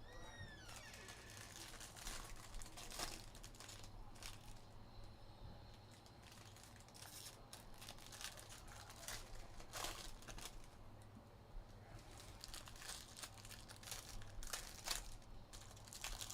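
Faint crinkling and tearing of plastic wrapping in irregular rustles, as sealed trading-card boxes are unwrapped.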